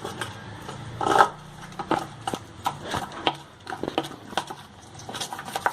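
A thick chicken 65 marinade of curd, cornflour, ginger-garlic paste and spices being mashed and mixed in a bowl, with irregular clicks and knocks of the utensil against the bowl, several a second.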